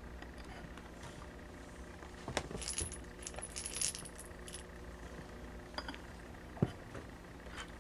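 Small metal bell of a cat toy jingling in quick, irregular bursts as kittens bat it about, then a single sharp knock near the end.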